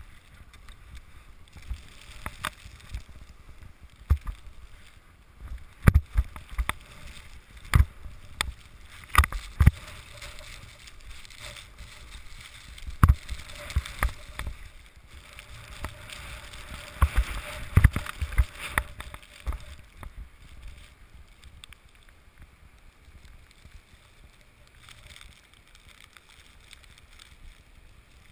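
Skis sliding through deep powder snow close to the camera: a steady hiss broken by sharp knocks and thumps, most of them in the first twenty seconds, then quieter and smoother near the end.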